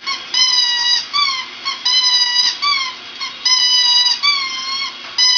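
Border Terrier howling: a run of high, drawn-out notes, long level ones alternating with shorter ones that rise and fall, about every second and a half.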